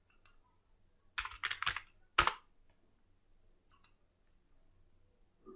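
Typing on a computer keyboard: a short quick run of keystrokes about a second in, ending on a harder keystroke, followed by a few faint clicks.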